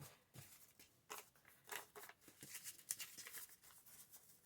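Faint, irregular scratching and rustling of old paper being handled.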